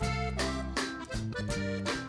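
Background music: an upbeat, accordion-led tune over a steady beat and bass line.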